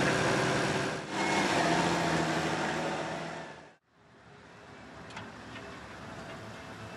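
McCormick MTX tractor's diesel engine running hard under load, pulling a sled through sand; it fades out just before four seconds in. A quieter, steady engine sound follows.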